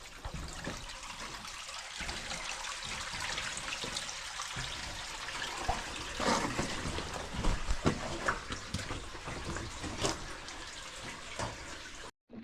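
Steady rush of running water echoing in a cave passage, with a few knocks and scrapes in the second half.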